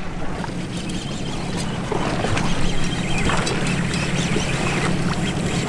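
Steady low hum of a boat's outboard engines over a bed of water and wind noise, growing stronger about two seconds in.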